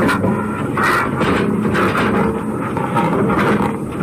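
Dog barking and snarling aggressively in loud, rough, repeated outbursts, about one every half second or so; the dog is presented as rabid and showing the aggression of rabies.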